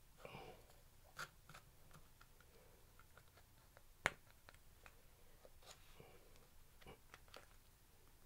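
Faint scattered clicks and light scraping of a knife blade worked against a small hard object in the hands, with one sharp click about four seconds in.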